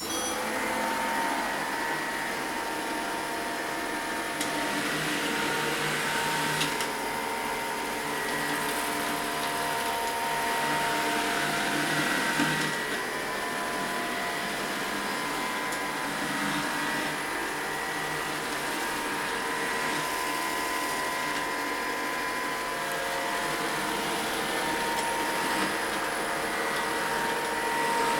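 Robot vacuum cleaner running steadily, a constant motor and fan whine with a held high tone over the rush of its suction.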